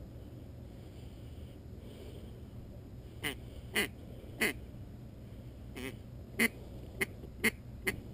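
A reed duck call blown by a hunter, sounding short quacks: three spaced quacks, then a quicker run of about five.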